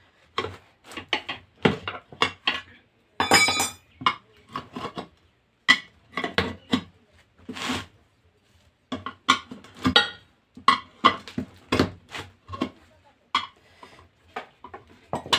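Steel tyre levers clanking and scraping against a motorcycle's steel wheel rim as the tyre is levered off the rim, a quick irregular run of sharp metallic knocks. One strike about three seconds in rings out, and there is a longer rasp about halfway through.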